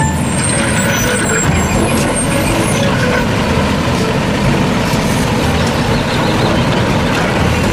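Garbage truck running, a steady, loud truck noise.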